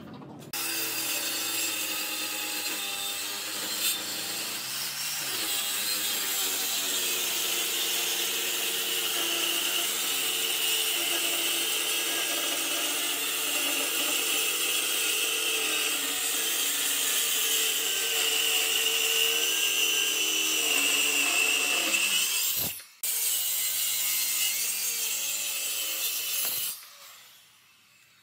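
Corded circular saw running along a guide rail, its blade cutting lengthwise through a thick wooden slab with a steady whine. The cut breaks off briefly late on, resumes, and then the saw stops shortly before the end.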